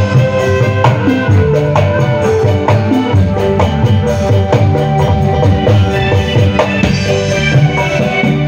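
Live dangdut koplo band music played loud through a large sound system. Kendang hand drums, struck with the palms, drive a fast, steady rhythm over the band's sustained pitched parts.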